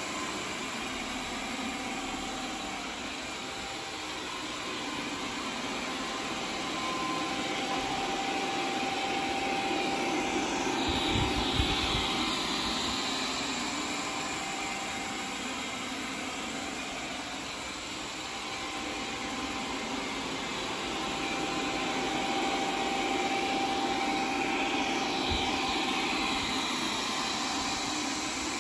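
Cecotec Conga 3290 robot vacuum running in turbo mode, a steady whir of its suction fan and brushes that swells and fades as it moves about. A brief low thump about eleven seconds in, and a smaller one near the end.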